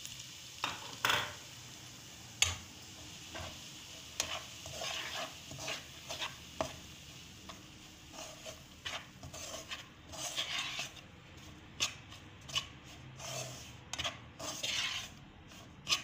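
Spatula stirring and scraping semolina through hot ghee in a pan, with irregular clicks and knocks against the pan over a faint sizzle of frying. The semolina is being dry-roasted in the ghee for halwa.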